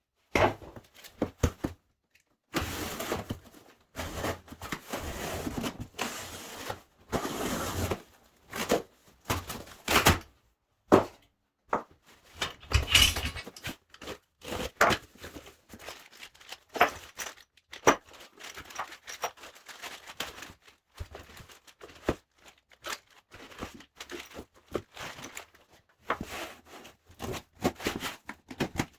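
Irregular knocks, clunks and clicks of parts being handled and unpacked, mixed with short stretches of rustling.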